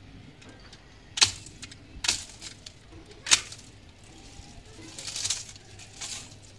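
Hand-held cutting blades snipping through plant stems three times, each a sharp short snap about a second apart. A longer, softer noise follows about five seconds in.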